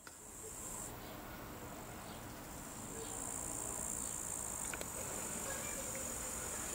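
Meadow insects chirping steadily in the grass: a continuous high, shrill buzz, over a low rumble.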